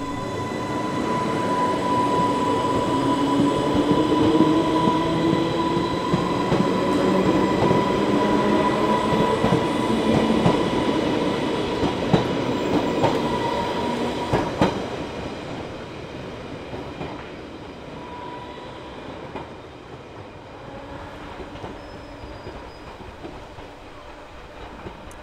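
Class 484 electric train running, with a whine whose pitch glides, a steady high tone and occasional clicks. About fifteen seconds in it drops sharply to a quieter rumble.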